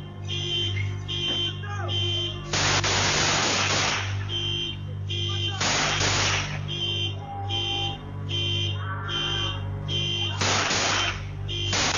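Electronic alarm beeping rapidly and evenly, about two and a half beeps a second, over a steady low hum. Several loud rushes of noise, each about a second long, break over it.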